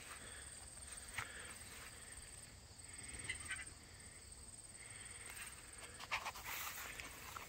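Faint outdoor ambience: a steady high-pitched whine, with soft scattered rustles and breathy sounds that come thickest near the end.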